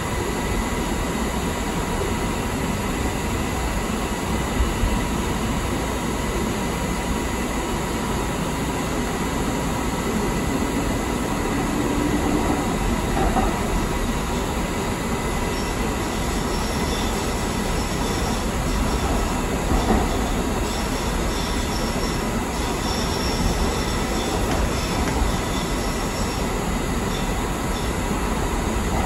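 Light rail train running through a subway tunnel, heard from inside the car: a steady rumble of wheels on track with a faint steady whine. Through the second half, high-pitched wheel squeal comes and goes as the train takes curves.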